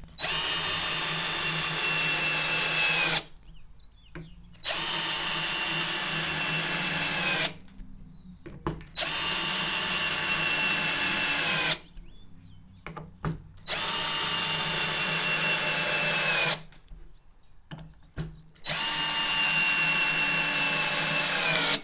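Tacklife 20V cordless drill driving wood screws into lumber: five separate runs of about three seconds each, the motor whine dropping slightly in pitch at the end of each run, with small clicks in the pauses between.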